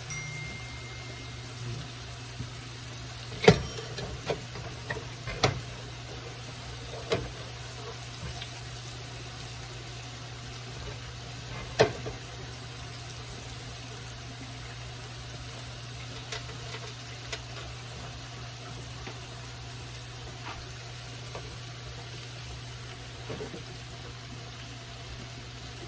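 Oyster mushrooms frying in hot oil in a pan: a steady sizzle with scattered sharp pops, the loudest about three and a half seconds and twelve seconds in, over a steady low hum.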